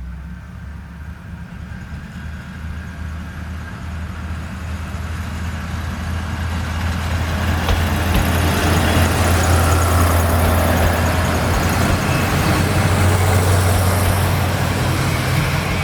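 Diesel railcar engine running with a steady low drone, growing louder over the first half and then holding steady.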